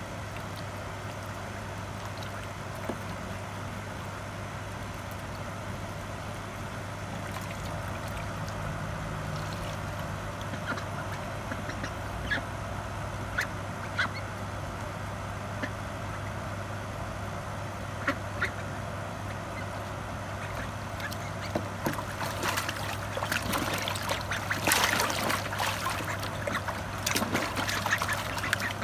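Ducks bathing in a shallow plastic tub of water: scattered small splashes and drips, then a run of vigorous splashing for the last six seconds or so as they dip and flap. A steady low hum runs underneath.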